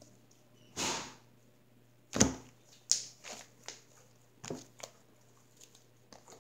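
White slime being pulled and torn apart by hand and slapped onto a wooden tabletop. A soft rustling burst comes about a second in, then a run of sharp slaps, the loudest just after two seconds, and a few faint ones near the end.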